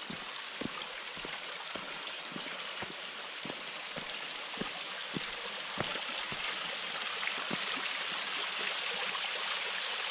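Small stream trickling over sandstone ledges and splashing into a rock pool, growing louder in the second half. Soft short taps come about twice a second throughout.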